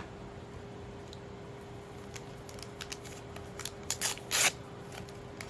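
Trading cards being handled and slid against one another: a few short swishes and flicks about four seconds in, over a faint steady hum.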